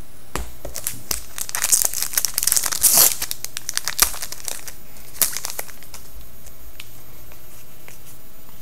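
Upper Deck SPX hockey card pack wrapper crinkling as it is torn open and handled, loudest in the first three seconds. A couple of sharp ticks follow, then only faint handling of the cards.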